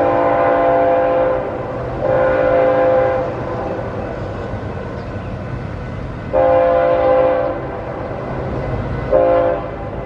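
Approaching freight train's diesel locomotive sounding its multi-tone air horn, loud: two long blasts, a pause of about three seconds, then another long blast and a short one near the end. A steady low rumble of the train runs underneath.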